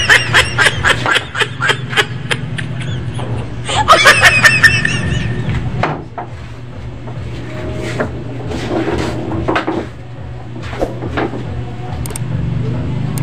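Laughter in quick pulsed bursts, once near the start and again around four seconds in, over a steady low hum. Later come a few sharp isolated clicks.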